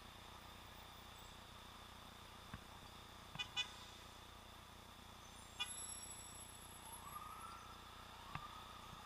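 Faint, muffled city traffic heard through a camera's sealed waterproof housing, with two quick car-horn toots about three and a half seconds in and a third about two seconds later.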